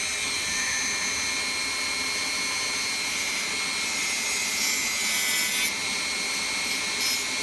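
Dremel rotary tool running at high speed with a sanding drum, grinding the excess glued R-Hop patch flush on a brass airsoft barrel: a steady high motor whine over the scratch of abrasive on the work, the grinding noise changing in texture a few times in the second half.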